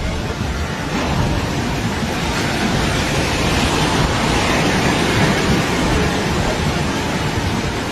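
Loud, steady rushing roar of tsunami floodwater surging.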